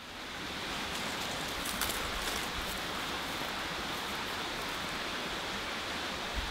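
Steady, even outdoor background hiss, with a few faint clicks about two seconds in.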